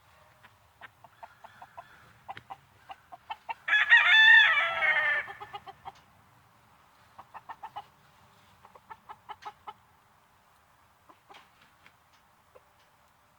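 A rooster crows once, loud, about four seconds in, among short repeated clucking calls from chickens before and after.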